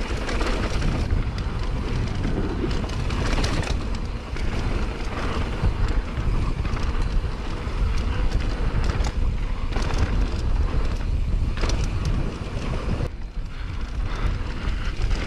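Wind rushing over a rider-mounted camera's microphone with a heavy low rumble, mixed with mountain bike tyres rolling fast over a hard-packed dirt trail and frequent clicks and knocks of the bike over bumps.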